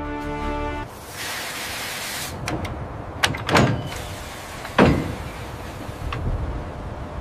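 Music stops about a second in. It is followed by a short hiss and then a series of sharp metallic clanks and clunks of tools working on steel mounts, two of them loudest in the middle.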